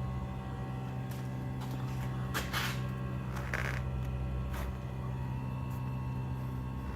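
Steady low hum from a new Trane heat pump's refrigerant line, with a stack of fainter steady overtones above it; the uploader says the line seems to be vibrating against a floor joist or band board. A few brief scuffs and rustles come over the hum.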